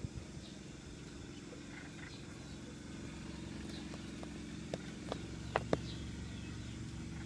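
Faint, scattered chirps of small birds over a steady low hum, with a few sharp clicks a little past the middle.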